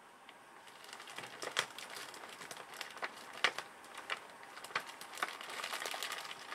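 Irregular clicks and crinkling from things being handled: a few sharp ticks over a faint rustle that starts about a second in and grows slowly louder.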